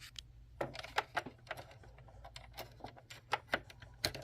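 Irregular light clicks and clatter of small hard parts, sewing-machine presser feet and accessories, being handled and sorted, several a second at an uneven pace. A faint steady low hum runs underneath.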